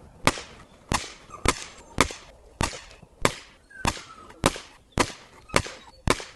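Rapid run of sharp knocks at a steady pace, a little under two a second, like hammering.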